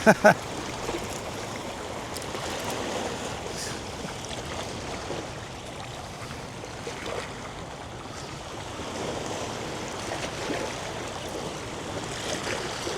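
Small bay waves lapping steadily along the shoreline, with wind on the microphone.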